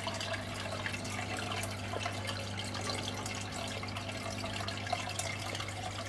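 Marine aquarium water circulating: a steady trickling and bubbling with scattered tiny pops, over a low steady hum.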